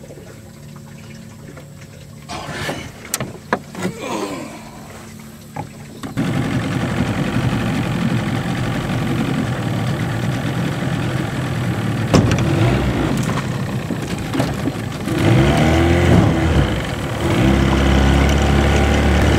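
A few light scrapes and knocks of rope and a metal weight being handled, then a small outboard motor running steadily, pushing a johnboat along; about fifteen seconds in the motor gets louder and its pitch shifts as the throttle is opened.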